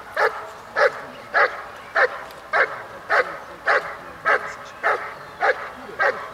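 German Shepherd barking at a helper who stands still in a protective sleeve, in a steady rhythm of about one bark every 0.6 seconds with no break. This is the dog holding and guarding the helper by barking in the protection phase of an IPO trial.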